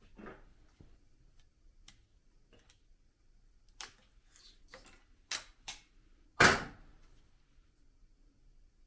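Scattered metal clicks and knocks of hand tools and engine parts being handled during an engine teardown, with one loud clunk about six and a half seconds in.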